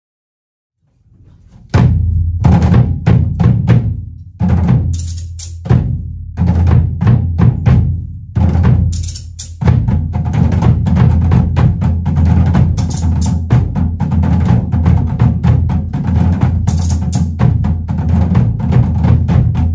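Tahitian drum ensemble playing an ote'a rhythm: sharp, fast stick strikes on tō'ere slit log drums over a deep booming pahu bass drum. A low rumble swells in about a second in, then loud phrases are broken by short pauses, and from about ten seconds in the drumming runs on unbroken.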